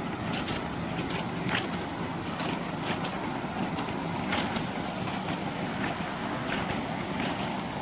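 Steady rushing noise of fast-flowing floodwater pouring through flooded bushland, with scattered light ticks over it.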